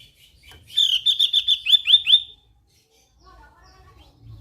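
Javan grey-throated white-eye (opior jawa) singing a quick run of about eight sharp, high chirps. The run starts about a second in and lasts about a second and a half.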